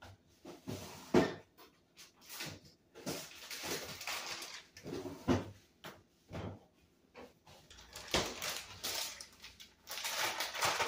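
Kitchen handling noises: a string of irregular knocks and bumps, then a plastic zip-top bag of shredded cheese crinkling near the end.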